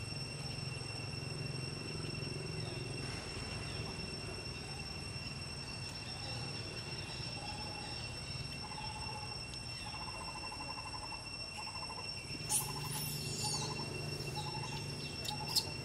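Forest ambience: a steady high insect drone, joined from about eight seconds in by a run of short, repeated trilled calls. Two sharp snaps or rustles come near the end, from the macaques moving about in the branches.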